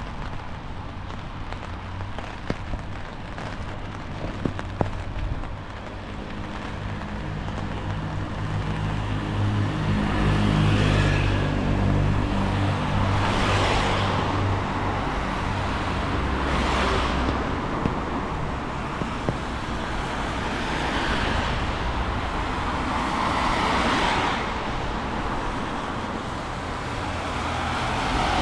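Road traffic on a wet street. A large vehicle's engine runs low and steady for several seconds in the first half, then cars pass one after another, each a swelling and fading hiss of tyres on wet tarmac, about every three to four seconds.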